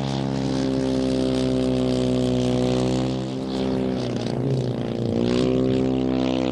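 340cc Westlake petrol engine of a one-third scale RC Vought F4U Corsair model in flight, its propeller note holding steady, then dipping in pitch and level about three seconds in and rising again about five seconds in. The model is being thrown through high-G manoeuvres to try to free an undercarriage leg that has not come down.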